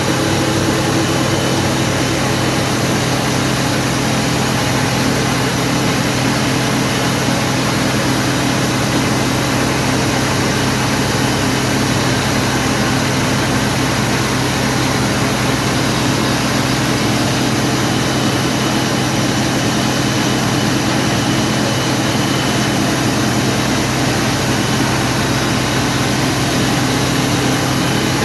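Wheat grain grading and cleaning machine running steadily: a constant mechanical hum with an even rushing noise over it, unchanging throughout.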